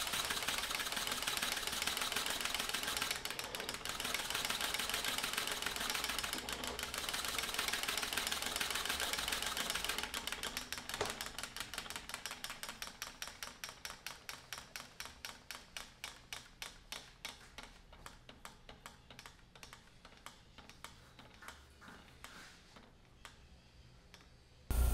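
Homemade syringe steam engine with a CD flywheel running: a fast, dense clatter of clicks. From about ten seconds in this slows into separate ticks, about four to five a second and then fewer, that spread out and fade as the engine winds down. The ticking stops just before the end.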